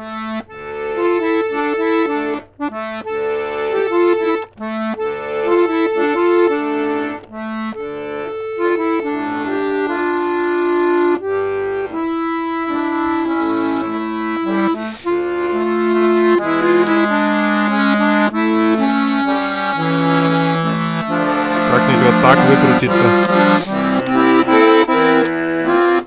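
Bayan (Russian button accordion) playing a slow improvisation: a melody over held chords and bass notes, changing about once a second, with some longer held chords in the middle and a busier, fuller passage near the end.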